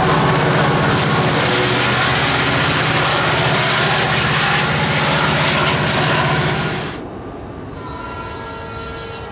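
Metra bilevel commuter train passing close at speed, a dense steady rumble of wheels on the rails. About seven seconds in it cuts off abruptly, and near the end a train horn sounds in the distance.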